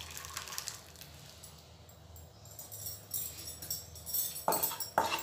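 Thick dal poured out of a nonstick kadhai into a serving bowl, with light jingling at first. From about three seconds in, a utensil scrapes and knocks against the pan, louder toward the end.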